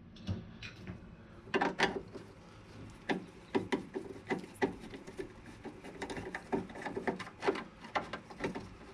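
Irregular metal clicks and scrapes of a large Phillips screwdriver turning a rusty, just-loosened door hinge screw out of the door post.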